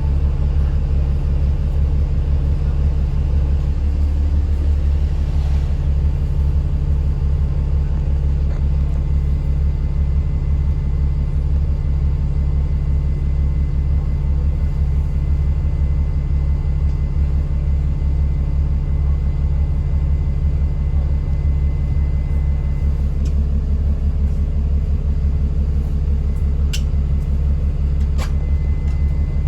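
Alexander Dennis Enviro 400 MMC double-decker bus engine running steadily: a loud, even low drone with a faint, steady high whine from the turbo above it. A couple of sharp ticks near the end.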